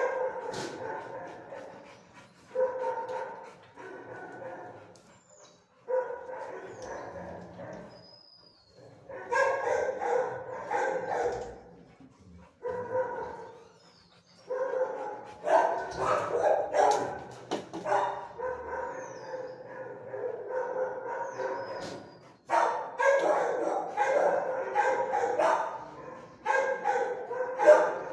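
Kenneled shelter dogs barking in repeated bouts, each lasting one to several seconds, with short pauses between.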